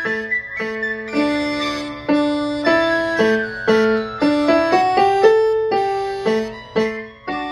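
Digital piano played by hand: a piece of struck notes and chords, each note fading after it sounds, with a short run of rising notes a little past the middle.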